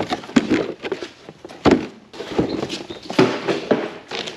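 Irregular knocks and thumps, about six at uneven spacing, from air filters being picked up and handled.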